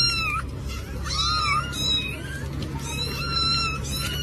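A cat meowing repeatedly in high-pitched calls, about five of them, some long and drawn out, others short, over a low steady hum.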